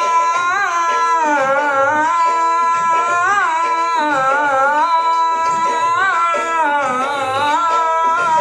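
Music from a Hindi wedding song: an instrumental interlude or wordless vocal line carrying one ornamented melody that bends and slides, over short repeated accompanying notes and a steady drum beat.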